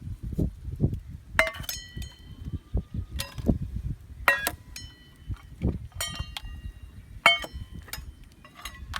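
Metal striking metal in sharp clinks that ring briefly, about six times roughly a second and a half apart, with dull low thuds in between.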